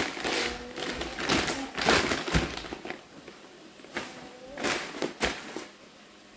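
Large plastic bag of long-grain white rice crinkling and rustling as it is handled, with a couple of dull thumps, about two and a half and five seconds in.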